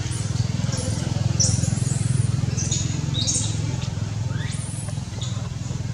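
Baby macaque crying in repeated high-pitched squeals, about one a second, one of them longer and sliding down in pitch. A steady low hum runs underneath.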